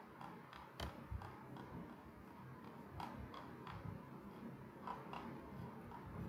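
Faint, irregular light ticks and clicks from a stylus tapping and writing on a pen tablet, over a low steady room hum.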